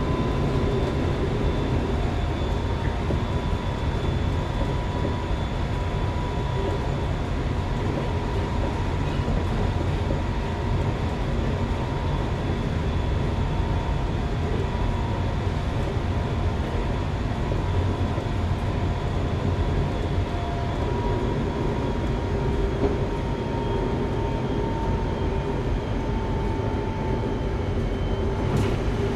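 Semboku Rapid Railway 5000 series electric train, which has Hitachi GTO-VVVF drive, running between stations, heard from inside a passenger car. A steady rumble of wheels and running gear is joined by a faint whine that slowly falls in pitch.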